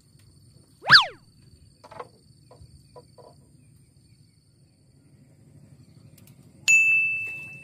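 A quick, loud rising whistle about a second in, a few faint clicks, and near the end a single clear bell-like ding that rings out and fades over about a second.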